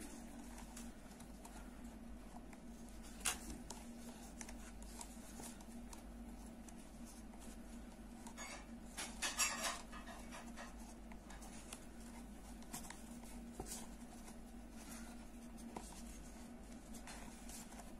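Faint scratching and rustling of a crochet hook pulling cord through the holes of a wooden bag side, with a sharp click about three seconds in and a louder burst of scraping around nine seconds.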